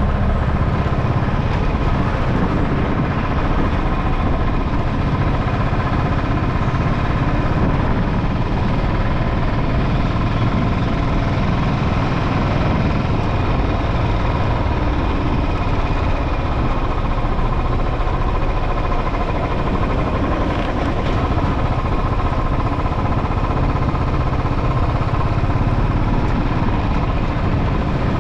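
Motorcycle engine running steadily while riding on the road.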